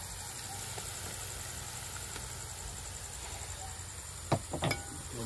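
Steady sizzle of onions frying in a large pot. About four seconds in, a few sharp metallic clicks of a spoon against a steel vessel.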